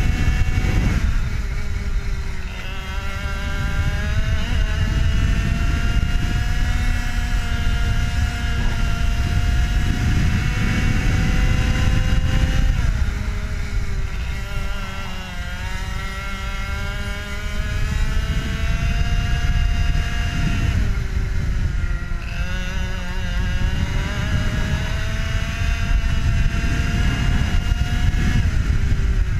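IAME two-stroke kart engine racing at full throttle, its note climbing steadily along the straights and dropping sharply several times as the kart slows for corners, then climbing again. Heavy wind rumble on the onboard microphone underneath.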